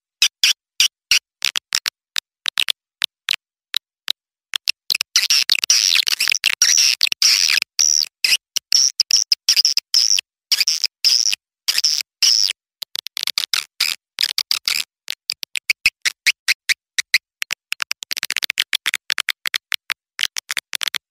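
Recorded calls of young swiftlets: rapid, high-pitched twittering chirps in quick runs, broken by abrupt gaps, sparse early on and dense in stretches later. It is a swiftlet lure call of the kind played to draw swiftlets into a swiftlet house.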